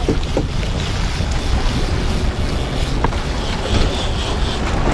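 Steady wind rumbling on the microphone, mixed with the noise of a boat at sea and the water around it, with a couple of faint ticks.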